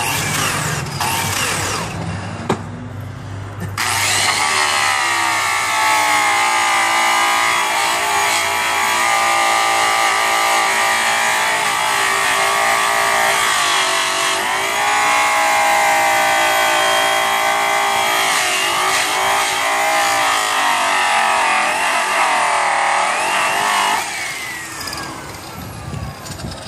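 High-speed rotary polisher with a buffing wheel loaded with brown Tripoli compound, cutting a weathered aluminium wheel. Its whine starts about four seconds in, wavers and dips in pitch as the wheel works the metal, and dies away near the end.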